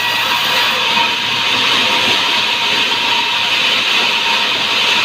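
Sawmill saw cutting through hardwood: a loud, steady hiss with a faint high whine running through it.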